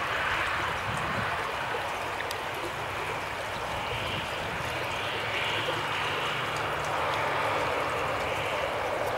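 Airbus A340-300's four CFM56 turbofan engines running low as the airliner rolls out on the runway after landing, a steady hiss with a faint low hum.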